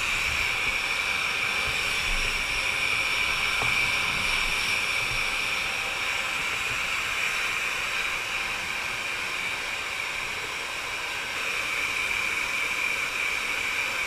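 Handheld hair dryer blowing on a wet dog's coat: a steady rushing hiss with a high whine, a little softer for a few seconds past the middle.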